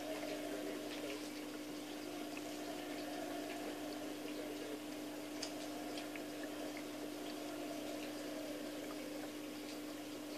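Aquarium water trickling steadily over a constant low hum, with scattered faint drip-like ticks: a tank filter running.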